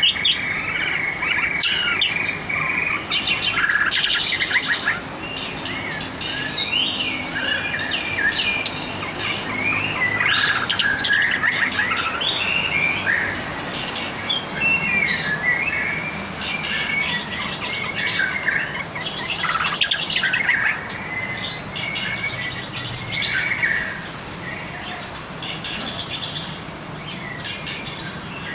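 A competition songbird singing a long, varied song: rapid chirps, trills and short whistled glides following one another with only brief pauses.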